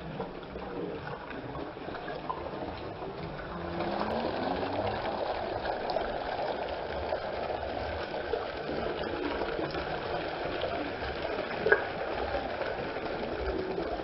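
Steady rush of flowing water, a little louder from about four seconds in, with one short sharp click near the end.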